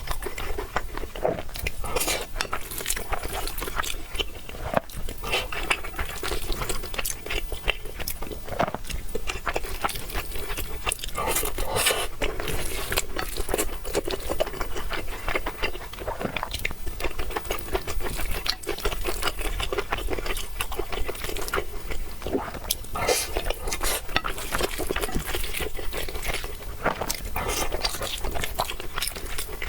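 A person chewing and biting into food, with a constant stream of sharp crunching clicks.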